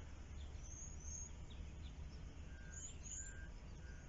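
Faint outdoor birdsong: two pairs of short high chirps and, in the second half, a short steady lower note repeated three times, over a low steady background rumble.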